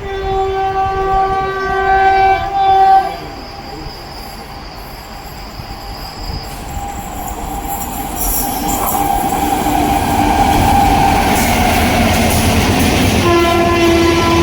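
Electric locomotive's horn sounding a steady chord for about three seconds. The train then approaches at speed, a rushing rumble building until it is loudest late on, and the horn sounds again near the end.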